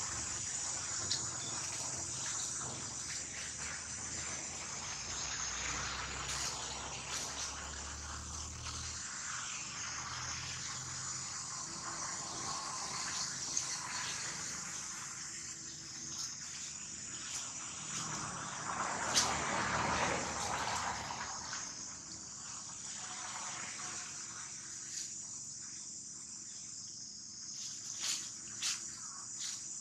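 Steady high-pitched buzzing of insects in the background, with dry leaves rustling and a few soft clicks as animals move about. A louder rustle comes about two-thirds of the way in.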